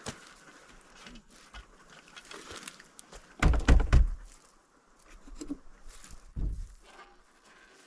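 Thuds and knocks: a loud cluster of several thuds about three and a half seconds in, another single thud near the end, and small scattered clicks and knocks in between.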